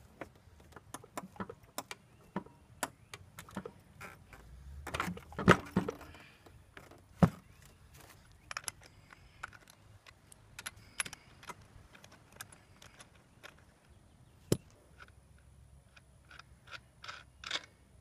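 Irregular metallic clicks and clinks of a 24mm socket and breaker bar working a scooter's rear axle nut loose and spinning it off, with a few louder knocks.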